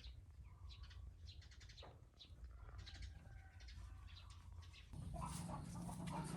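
Faint, short bird chirps scattered over a low steady hum. About five seconds in, a louder, noisier sound comes in.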